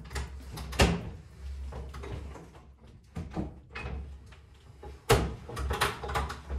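Knocks and clunks of a drywall lift and a plasterboard sheet being raised to the ceiling joists, over a low rumble. The sharpest knock comes about a second in, and a cluster of knocks follows around five to six seconds in.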